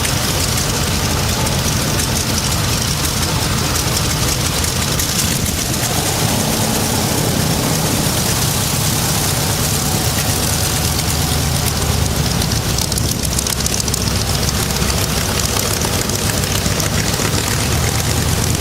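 Mitsubishi A6M Zero fighter's 14-cylinder radial engine running steadily and loudly, turning its propeller.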